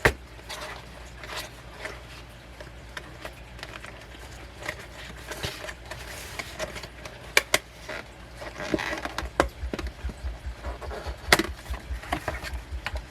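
Handling of a CD album's packaging and contents: scattered clicks and taps of cardboard and plastic with light rustling, and a few sharper knocks.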